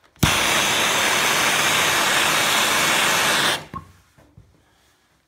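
Hand-held gas soldering torch lit with a click and burning with a steady, loud hiss for about three and a half seconds, then shut off, heating a pipe fitting for soldering.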